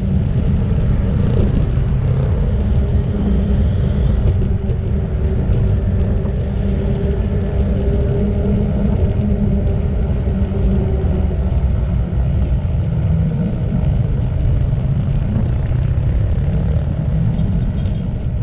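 Steady low rumble of wind buffeting the microphone while cycling, mixed with the sound of passing motorcycles and other road traffic.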